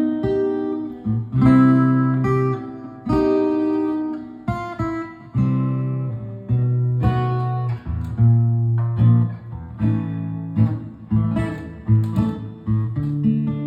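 Acoustic guitar strumming chords in a steady rhythm, with no voice yet.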